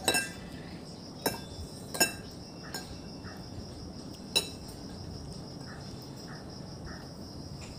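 A spoon clinks sharply against a plate a few times, the last clink about four and a half seconds in. Crickets chirr steadily underneath.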